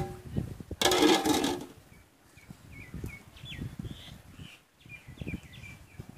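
A metal lid clatters onto an aluminium cooking pot about a second in. After that, birds chirp in a string of short high notes over soft low thuds from a wooden stick stirring thick ragi (finger millet) dough in a pot.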